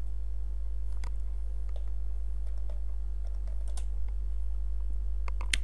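A few scattered computer keyboard keystrokes and clicks, typing a ticker symbol, over a steady low electrical hum.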